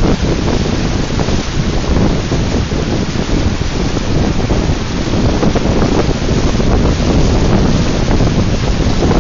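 Wind buffeting the microphone aboard a moving lake boat, a loud, fluctuating rushing rumble that is strongest in the low range.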